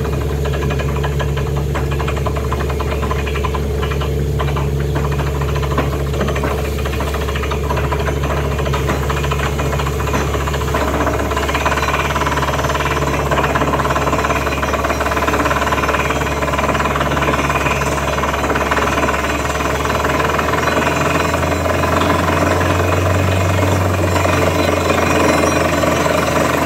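Truck-mounted borewell rig drilling rock with a down-the-hole air hammer: rapid, steady hammering over the drone of the rig's engine and air compressor, while water and rock cuttings are blown out of the hole. The engine's low note shifts about twenty seconds in.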